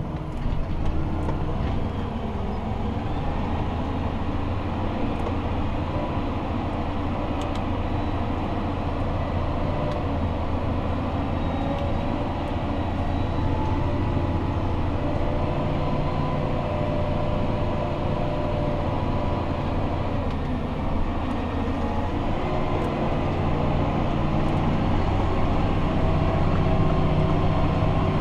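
Fendt 828 Vario tractor's six-cylinder diesel running steadily under load, heard from inside the cab while it drives a compost spreader: a low, even drone that grows slightly louder near the end.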